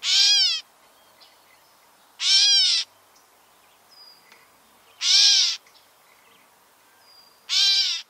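Gray catbird giving its cat-like mew call four times, each a short call that rises slightly and then falls, about two and a half seconds apart.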